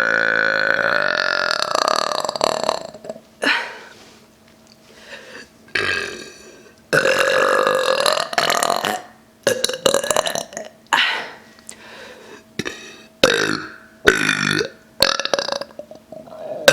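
A woman belching again and again on swallowed air, with no drink taken. There are two long, drawn-out belches, one at the start and one about seven seconds in, and many shorter belches between and after them.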